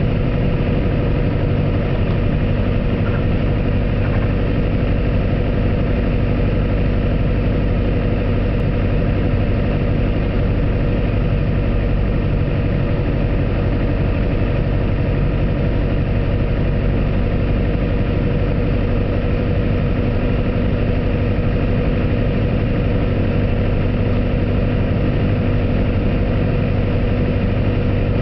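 Piper Archer's four-cylinder piston engine and propeller droning steadily, heard from inside the cockpit, holding an even power setting through the landing approach.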